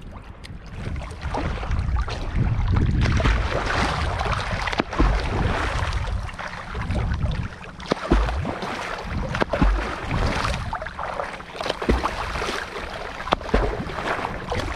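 Shallow sea water splashing and sloshing around people wading with a fishing net, with wind buffeting the microphone and low thumps every couple of seconds.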